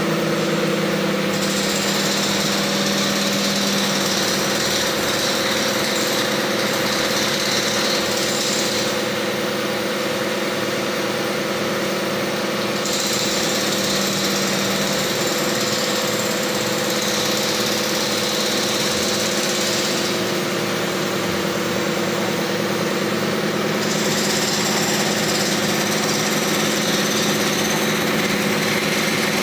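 Truck-mounted hydraulic crane's engine running steadily at a constant speed while it lowers a load, with a higher hiss joining in three times for several seconds each.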